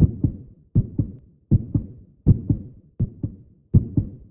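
Heartbeat sound effect: steady paired lub-dub thumps, one pair about every three-quarters of a second.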